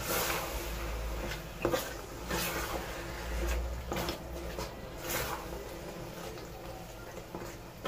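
Wooden spatula stirring a thick tomato and pepper stew base in a metal pot: irregular wet scraping strokes, with a few knocks against the pot.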